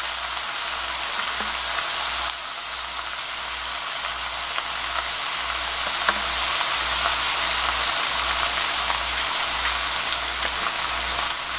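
Stir-fried pork and sour kimchi sizzling in a frying pan with the burner turned off: a steady crackling hiss from the pan's leftover heat, which drops a little about two seconds in.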